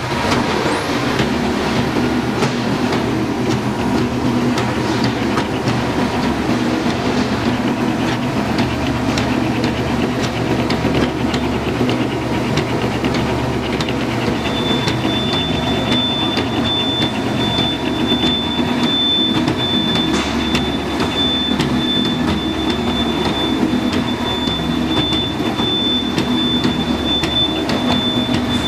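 Automatic stainless-steel cutlery polishing machine running: a steady, loud mechanical din with a constant clatter of small clicks from its buffing wheel and fork-and-spoon holder mechanism. About halfway through, a thin high whine comes in and holds.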